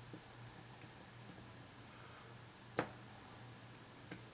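Faint steady low hum with one sharp click about two-thirds of the way through and a softer click near the end, from handling a battery and meter probes while checking its voltage.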